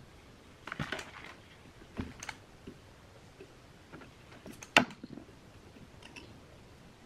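A handful of light metallic clicks and clinks as metal-can power transistors are handled and worked loose from the amplifier's finned heatsink, the sharpest about five seconds in.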